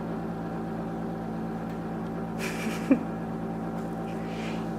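Refrigerator running with a steady hum made of several fixed tones. About three seconds in comes one short rising chirp, the loudest sound, just after a brief hiss.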